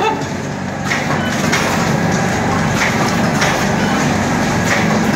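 Vertical form-fill-seal powder packaging machine with an auger filler running: a steady low mechanical hum with a regular click or knock nearly twice a second as the machine cycles.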